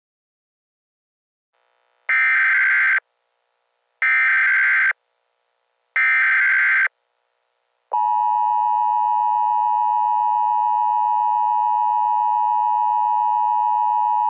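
Emergency Alert System header and attention tones. About two seconds in come three harsh one-second bursts of SAME data tones, a second apart. About eight seconds in, the steady two-tone EAS attention signal begins and holds.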